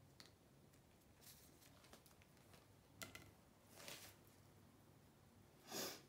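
Faint handling noises from hands and tools around a paint-pouring setup: a light click about halfway, a brief swish just after, and a short rustle near the end, over a faint steady low hum.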